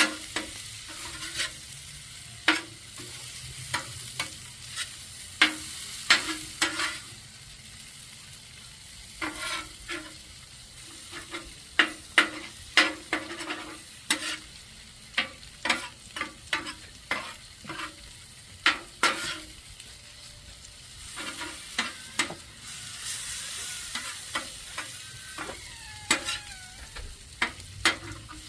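Food frying with a steady sizzle, while a utensil stirs and scrapes it on the hot cooking surface with many sharp, irregular clacks.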